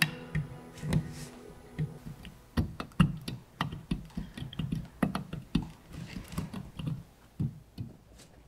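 Irregular small clicks and taps, a few a second, of a steel-pointed hand setting tool pressing and pushing the silver of a ring over a small diamond, securing the stone bit by bit. Soft background music fades out over the first two seconds.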